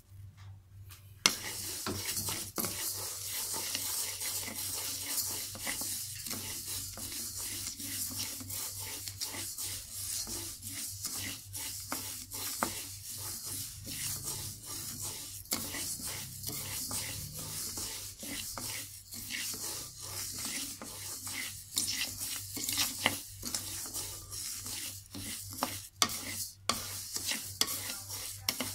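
Wooden spatula stirring and scraping dry glutinous rice grains around a wok as they toast: a continuous rustling hiss made of many quick, uneven scrape strokes, starting about a second in.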